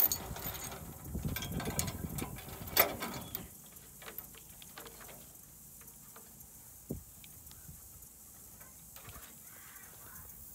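Steel trailer safety chains and hitch hardware rattling and clinking as the chains are hooked onto a pickup's receiver hitch, with one sharp metal clank about three seconds in. After that, only a few faint scattered clicks.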